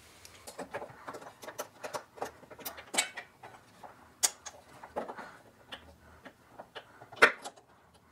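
Irregular light metallic clicks and ticks of a ratchet and spark plug socket working a spark plug loose, with a sharper knock about seven seconds in.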